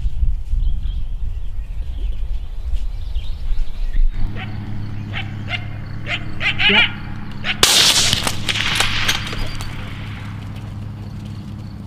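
A single rifle shot about two-thirds of the way through, fired at a coyote; its report rings out and echoes away over a couple of seconds. Before it there is wind rumble and faint chirping, and after a cut about four seconds in, a steady low hum under the shot.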